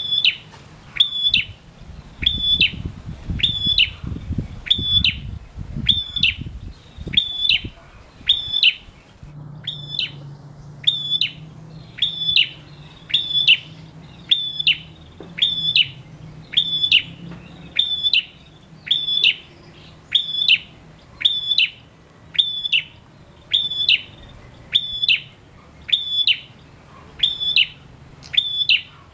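Caged male prenjak singing one sharp, high call about once a second, each note rising and then dropping, repeated evenly. A low rumble runs under the calls for a few seconds early in the song.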